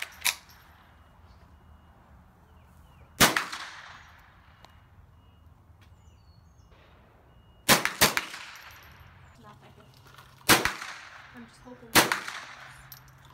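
Gunshots: five sharp reports a few seconds apart, two of them in quick succession near the middle, each trailing off in a short echo.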